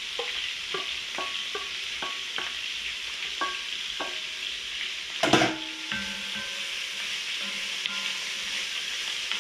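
Vegetables sizzling in a cast iron pot while a spoon taps and scrapes against a metal bowl, about three ringing taps a second, as the last of the vegetables are knocked out. About five seconds in comes one loud metallic clatter as the bowl is put down, then the spoon stirs the pot over the steady sizzle.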